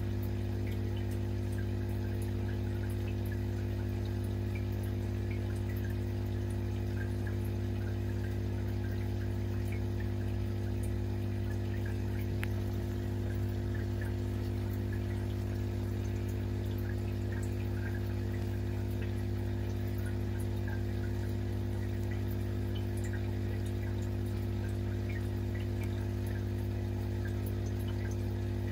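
Aquarium air pump humming steadily, with faint bubbling and trickling water from the tank's air-driven sponge filter.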